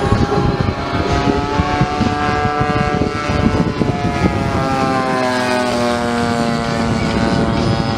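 Engines of two radio-controlled Spitfire scale model aircraft flying overhead, their overlapping propeller drone shifting in pitch, with a fall in pitch as they pass about five seconds in.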